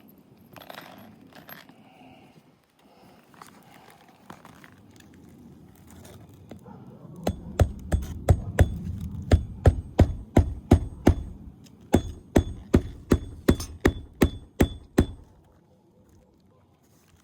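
Hand hammer driving roofing nails through an asphalt shingle: two runs of quick, sharp strikes with a metallic ring, about three a second, that begin about halfway through after some faint handling rustle and stop a couple of seconds before the end.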